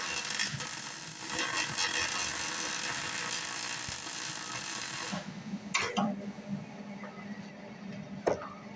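A 110-volt wire-feed MIG welder running solid-core wire into rusty steel, a steady arc hiss that cuts off suddenly about five seconds in. A few light clicks and knocks follow.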